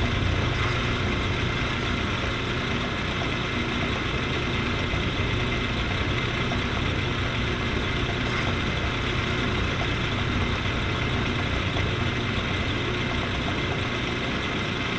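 Metal lathe running steadily while its cutting tool turns a groove into a spinning metal tube: an even motor hum with a steady higher whine.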